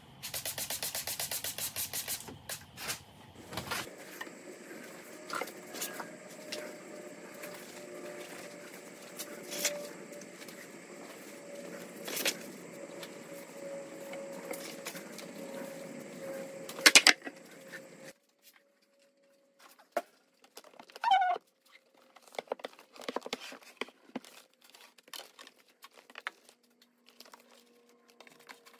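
Workshop handling sounds: a hand spray bottle spritzing wood conditioner onto quilted cedar veneer sheets in quick strokes at the start, then paper sheets being rustled and laid down over a low steady hum, with a few sharp knocks. After a sudden cut, scattered clicks and a crinkling of plastic sheeting.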